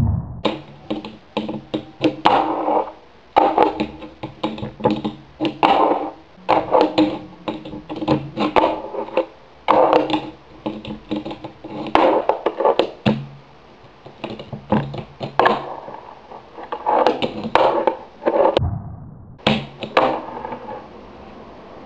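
A fingerboard knocking and clacking against a stone block as tricks are done on it: many short, sharp knocks at uneven spacing.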